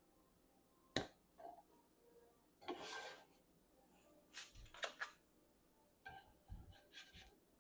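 Faint scattered clicks and taps of kitchen utensils being handled, with quiet gaps between them: a sharp click about a second in, a brief noisy sound around three seconds, and small clusters of taps later.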